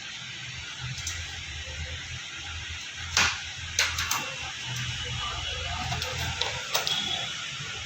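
A few sharp metallic clicks and knocks of hand tools at work on a motorcycle's brake caliper, the loudest about three seconds in, over a steady low hum.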